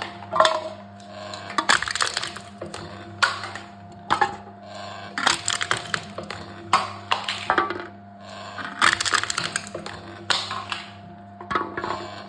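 Aluminium cans being crushed in a crushing machine: a run of crackling, crunching bursts about every second or so, over a steady hum.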